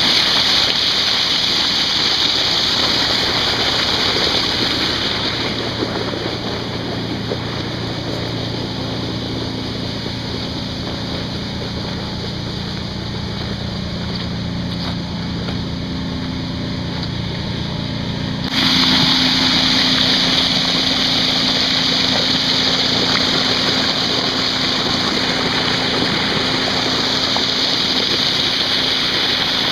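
Water gushing hard out of a large discharge pipe and splashing onto a tarp, a loud steady rush with a steady low machine drone beneath. The rush drops lower for a stretch in the middle, then jumps back up suddenly about two-thirds of the way through.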